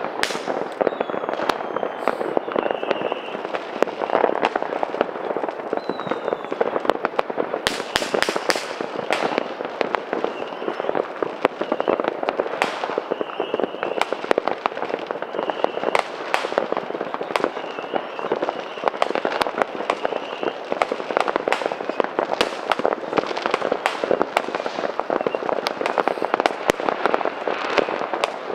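New Year's fireworks and firecrackers going off all around in a continuous barrage of bangs and crackling, with a denser burst of bangs about eight seconds in. Short high whistles rise out of the crackle now and then.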